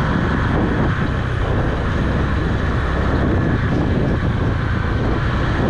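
Motorbike being ridden along a road: a steady, unbroken rush of engine and wind noise.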